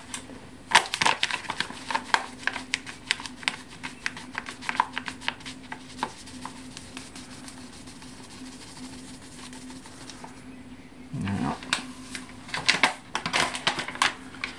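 Paper flour bag crinkling and crackling in the hands as bread flour is poured from it into a stainless steel mixing bowl, in dense bursts during the first half and again near the end, quieter in between. A faint steady hum runs underneath.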